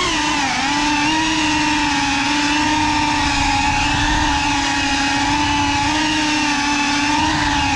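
GEPRC CineLog35 cinewhoop's motors and ducted propellers whining at a near-steady throttle as the drone cruises, one held buzzing pitch, heard from the GoPro mounted on the drone.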